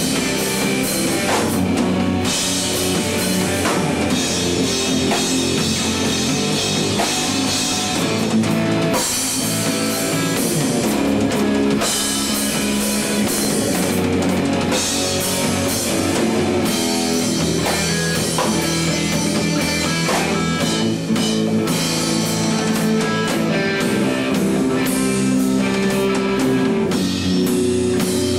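Rock song playing, with a full drum kit and guitars.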